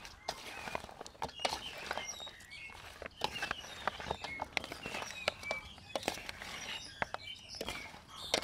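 Chicken feet salad being tossed in a metal bowl, giving irregular wet clicks and knocks as the ingredients are turned over. Birds chirp in the background.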